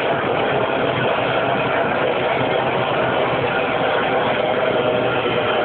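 Motorboat engine running steadily at speed, a constant drone with no change in pitch.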